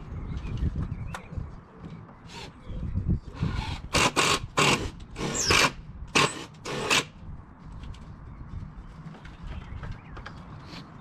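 A power drill/driver driving screws into the timber frame in about seven short, loud, uneven bursts a few seconds in, with handling clatter around them.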